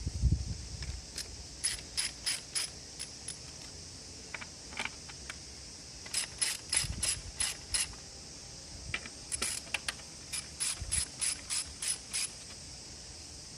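Ratchet wrench clicking in three runs of quick, even clicks, about four a second, with short pauses between runs.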